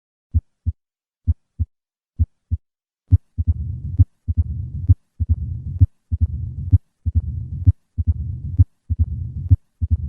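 Heart sounds of a patient with mitral stenosis, about one beat a second. The first three beats are clean lub-dub pairs. From about three seconds in, a low-pitched, rumbling diastolic murmur fills the gap between the beats.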